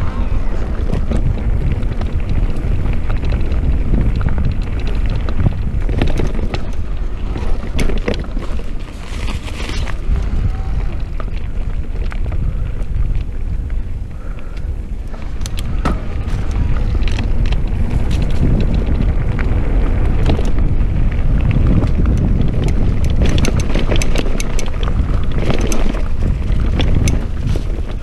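Mountain bike riding a dirt trail: heavy wind rumble on the microphone, tyre noise on the dirt, and irregular rattles and knocks from the bike over bumps.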